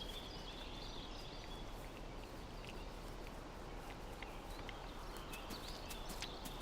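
Quiet wild-meadow ambience: a steady soft hiss with faint scattered bird chirps and small ticks.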